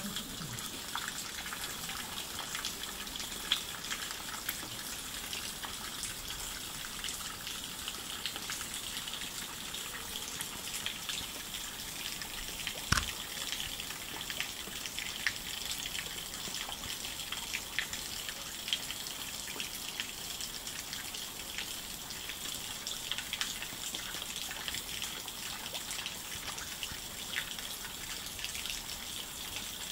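Steady sound of running and dripping water, with scattered small drips and a single knock about halfway through.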